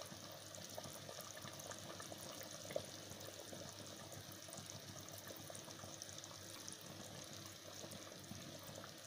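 Thick curry bubbling at a boil in a clay pot: a faint, steady sputter of bursting bubbles, with one small knock about three seconds in.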